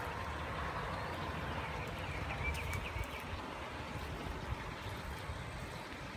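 Outdoor background noise: a steady low rumble with a hiss over it, and a few faint high chirps about two and a half seconds in.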